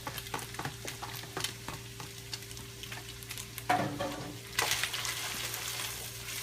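Pork and chopped white onion sizzling as they fry, crackling steadily with small pops, with louder stirring and a swell of sizzle a little past halfway through.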